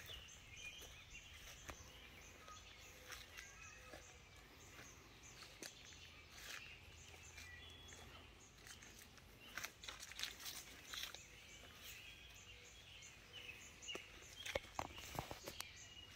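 Quiet outdoor ambience with faint, scattered bird chirps, and a few footsteps on grass about ten seconds in and again near the end.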